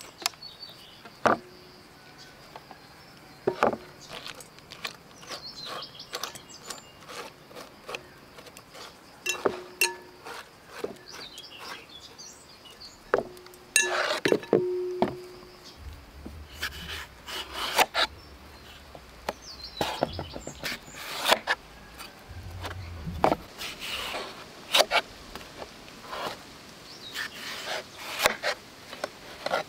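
A metal spoon scraping seeds out of a halved melon and clinking against a glass bowl: irregular sharp taps and scrapes with a few short rings. Near the end a knife cuts through the melon on a wooden board.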